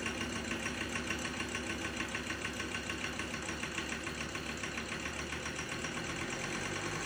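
Ford Ranger 3.2 TDCi five-cylinder diesel engine idling with a steady rhythmic clatter, running with a miss that the mechanic puts down to a faulty injector.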